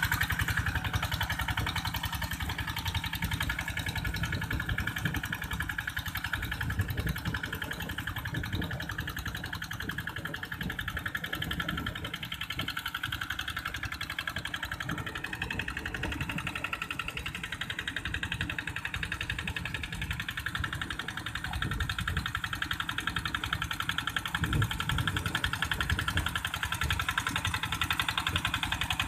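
A two-wheel hand tractor's single-cylinder diesel engine chugging steadily with an even, rapid beat while it pulls its steel cage wheels through a flooded rice paddy.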